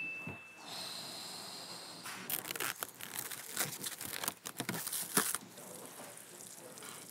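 Kitchen food-preparation noises: a quick, irregular run of sharp clicks and knocks from utensils and cookware, with a short rushing noise about five seconds in, then quieter handling sounds.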